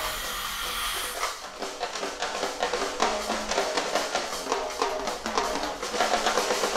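Cartoon background score with a busy drum-kit beat: rapid drum strokes under a few pitched notes.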